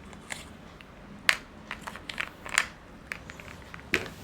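Irregular small clicks and brief rustles, as of objects being handled, about half a dozen sharp ones spread across the few seconds, over a faint steady room hum.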